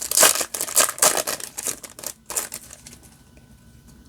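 Foil wrapper of a Yu-Gi-Oh booster pack crinkling as it is handled and torn open, a dense run of crackles that dies down about three seconds in.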